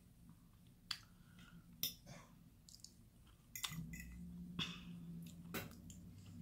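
Metal fork clicking against a plate about five times as an enchilada is cut and picked up, with faint chewing between the clicks over a low steady hum.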